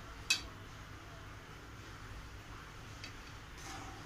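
A metal spatula clinks once sharply against an aluminium pan of simmering milk and vermicelli while stirring, with a couple of faint taps later, over a low steady hum.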